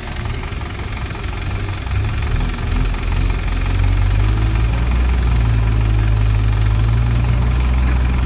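Diesel engines of a farm tractor and a backhoe loader running. The deep low rumble gets louder and steadier about four seconds in.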